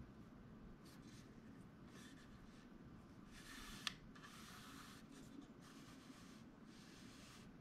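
Faint rubbing of hands turning a camera lens with its petal hood fitted, with one small click about four seconds in.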